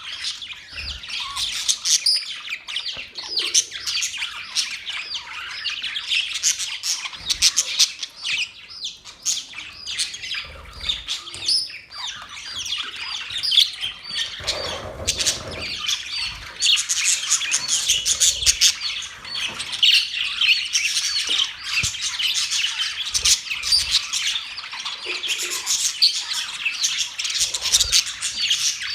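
Budgerigars chattering: a dense, unbroken run of many overlapping high chirps, squawks and warbles.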